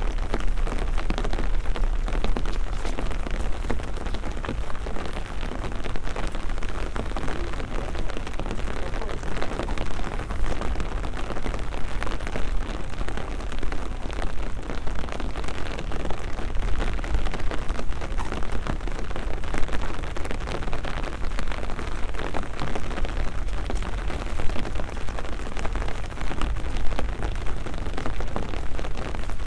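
Steady rain falling on wet ground and surfaces, a dense hiss full of tiny drop clicks, over a steady low rumble.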